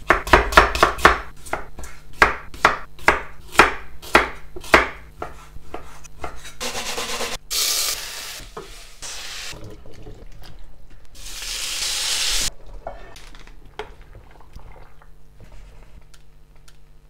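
Kitchen knife chopping onion on a wooden cutting board in quick regular strokes, about two to three a second, for the first five seconds. Then food sizzles in three bursts of hiss as it goes into a hot steel pot. Near the end come sparse light clinks of a spoon and plate.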